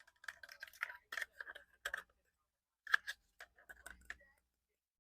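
Quick clicks and taps of fingers handling a camera, in two close clusters, stopping about four and a half seconds in.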